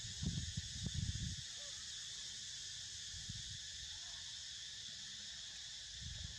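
Steady high buzz of insects, crickets or cicadas, running unchanged throughout. Low rumbling bumps come in the first second and a half and again briefly near the end.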